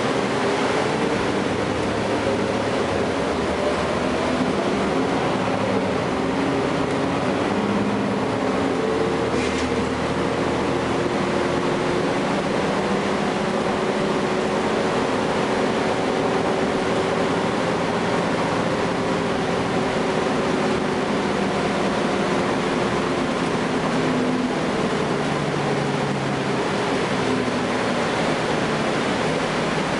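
Cummins ISL9 inline-six diesel of a Gillig Low Floor transit bus running under way, heard from inside the cabin together with road noise. The engine note climbs slowly and then eases back down as the bus accelerates.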